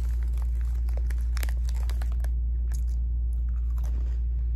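Close handling noise: small crackles and rustles of bedding and fabric moving against the phone, over a steady low hum.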